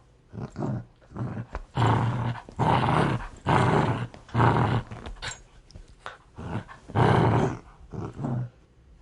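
A dog growling aggressively in a run of short, rough growls, each under a second long, with brief pauses between them.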